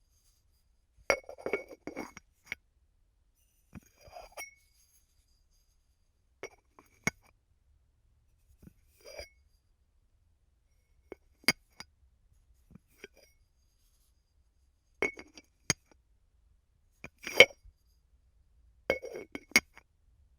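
Ceramic lid of a clay bowl being lifted off and set back on, again and again: sharp clinks and scrapes of ceramic on ceramic with a brief ring, in small clusters every couple of seconds.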